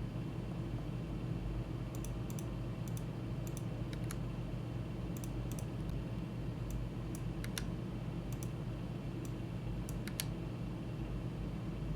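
Irregular, scattered clicks of a computer keyboard and mouse as a 3D model is worked on, over a steady low hum.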